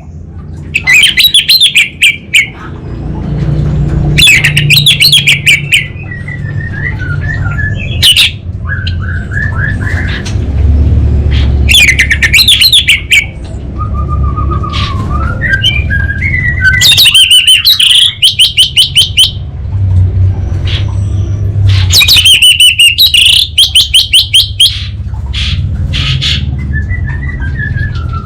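Orange-headed thrush singing at full volume. Loud bursts of rapid, crackling clicked notes repeat every few seconds, and softer warbled phrases come between them. The crackling bursts are the 'kabel konslet' (short-circuit) song type that keepers prize.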